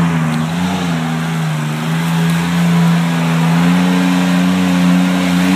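Off-road vehicle engine held at high, steady revs under load while climbing a rock-crawl trail, its pitch rising a little in the first couple of seconds.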